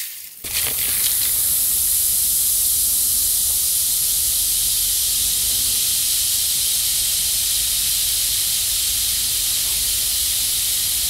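Fizzy soft drink poured into a shallow pan of water, fizzing with a steady hiss that starts about half a second in. It is a foley imitation of meat frying in a pan.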